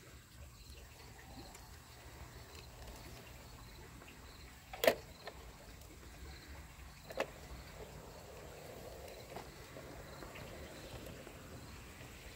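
Garden-railway model train with a faint low hum throughout; a sharp clack about five seconds in as the small locomotive couples onto two passenger coaches, and a smaller click a couple of seconds later.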